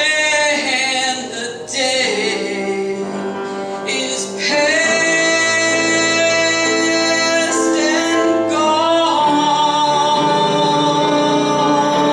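A woman singing a gospel hymn solo with piano accompaniment. Her line moves through several notes early on, then she holds long sustained notes from about halfway through.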